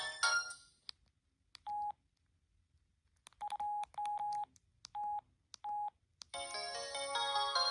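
Samsung SGH-P207 phone keypad: sharp button clicks and about six short beeps of one pitch as the menu is stepped to the next tone. A polyphonic ringtone cuts off at the start, and a new one begins about six seconds in.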